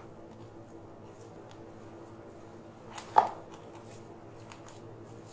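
Steel spoon mixing mashed potato and cooked semolina dough in a bowl: soft scraping and light taps, with one sharper clink of spoon against bowl about three seconds in, over a faint steady hum.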